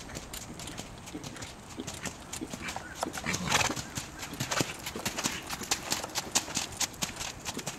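Hoofbeats of a grey horse trotting on a sand arena, a steady run of dull strikes that grows louder as the horse passes close, with a brief louder rush of noise about halfway through.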